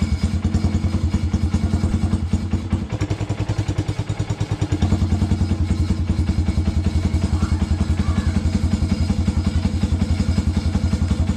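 Suzuki Raider 150's single-cylinder four-stroke engine idling through an aftermarket slip-on exhaust, on a freshly fitted new spark plug. The idle sags about three seconds in and picks back up about two seconds later.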